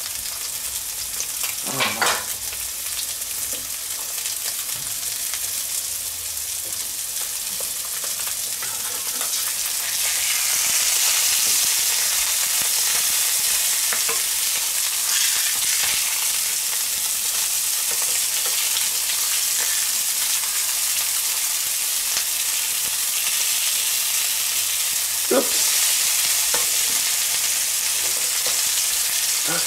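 A minced-meat patty and a fried egg sizzling in clarified butter in a frying pan, a steady hiss that gets louder about ten seconds in. A spatula knocks against the pan a couple of times.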